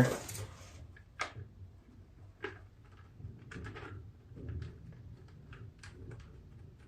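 Faint scattered clicks and light knocks of an engine's top cover being handled and set back in place on a riding mower engine.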